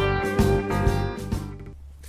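Guitar intro music playing plucked notes, which stops near the end, leaving a steady low hum.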